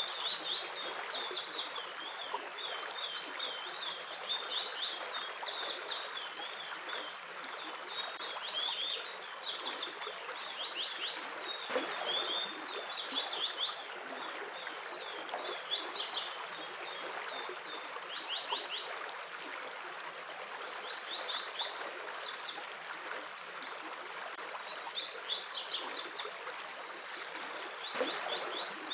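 Running water from a stream makes a steady rushing under birds chirping, which sing short, fast trills of high notes again and again.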